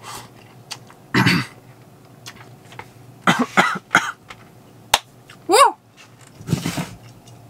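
A person eating spicy ramen and coughing: several short coughs and breathy, sputtering bursts. A sharp click comes about five seconds in, and a brief voiced sound right after it.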